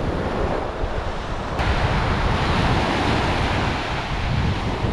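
Small sea waves breaking and washing up on a sandy beach, with wind rumbling on the microphone. The surf hiss grows brighter about a second and a half in.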